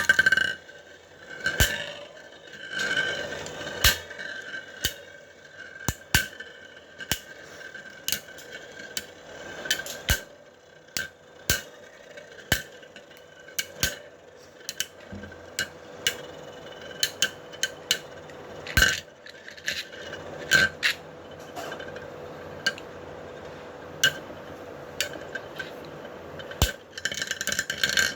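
Metal Beyblade tops spinning and scraping in a stadium, with a steady high whine and many sharp clicks as they knock together. A loud burst opens the passage, and a denser rattle comes near the end.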